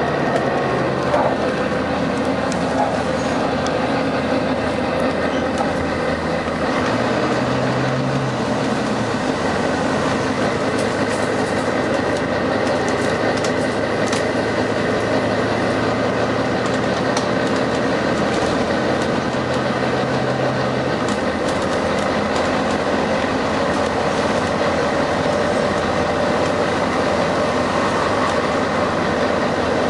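Volvo B9TL double-decker bus running, a steady drone of its 9.4-litre six-cylinder diesel engine mixed with road noise and rattles. Low hums come and go a few times.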